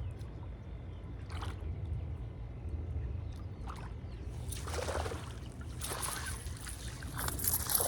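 Water splashing and sloshing as a hooked peacock bass thrashes at the surface while being reeled in and landed, growing stronger from about halfway through, over a steady low wind rumble on the microphone.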